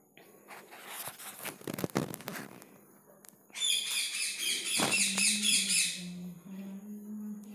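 Soft handling and rustling noises, then about three and a half seconds in a quick run of high bird chirps for about two and a half seconds, with a low steady hum beneath afterwards.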